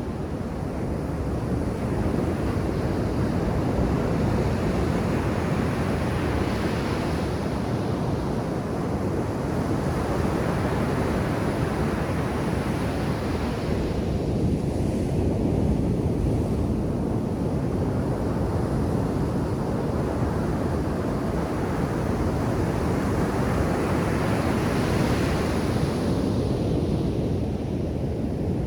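Ocean surf breaking on a beach: a steady wash of waves that swells each time a wave breaks, every few seconds.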